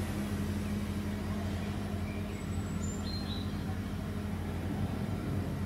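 Steady low drone of distant engine noise. A few faint, short high chirps come about halfway through.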